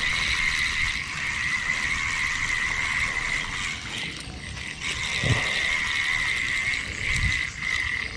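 A steady, high-pitched animal chorus of calling frogs and insects at the riverbank, one unbroken tone. Two dull knocks from the fishing rod and reel being handled sound about five and seven seconds in.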